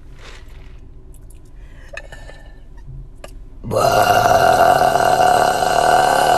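A woman's long, loud burp, beginning suddenly a little over halfway through and held without a break, after a few faint clicks in the quiet before it.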